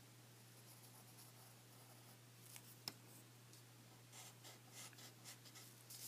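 Faint pencil strokes scratching on drawing paper. It is almost silent at first, then a few light strokes and a single small tick about three seconds in, with quicker strokes in the last two seconds.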